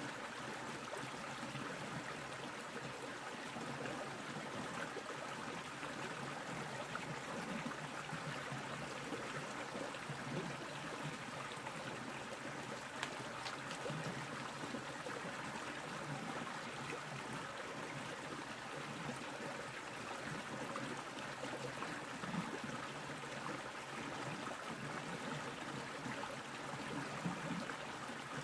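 Small mountain creek running over rocks, a steady rush of water with no change throughout.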